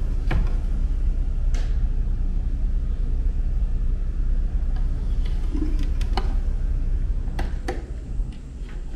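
A steady low rumble with a scattered handful of short sharp clicks and knocks; two clicks close together near the end come as a hand takes hold of a metal lever door handle.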